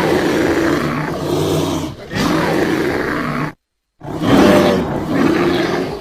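Creature roar sound effects for a prehistoric beast: two long, rough roars back to back, then a third after a brief silence.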